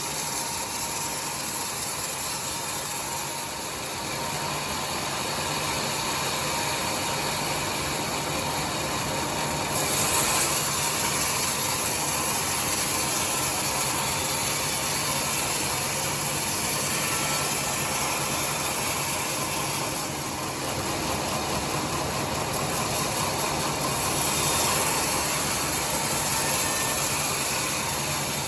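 Sawmill saw running steadily while ripping timber into boards: a dense, even noise with a faint low hum, getting a little louder about ten seconds in.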